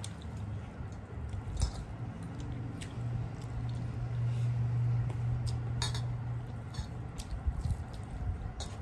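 Close-up eating by hand: fingers squishing rice and curry against steel plates, with chewing and wet mouth smacks and scattered short clicks. A low steady hum runs from about three to seven seconds in.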